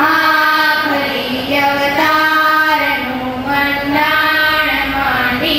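A group of girls singing a prayer together into microphones, their voices in unison on long held notes that step up and down.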